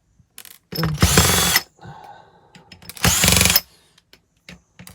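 Cordless drill on its fastest setting spinning out laptop case screws: two short bursts of under a second each, each whining up to speed and then cutting off, with small clicks between.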